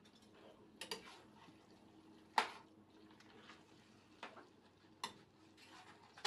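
Scattered clinks and knocks of kitchen utensils against pots and dishes, about six short hits, the loudest about two and a half seconds in, over a faint steady hum.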